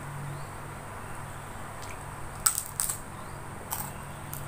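Eating by hand from a plate: a few sharp clicks and crackles from chewing and fingers working the food on the plate, bunched about halfway through and again near the end.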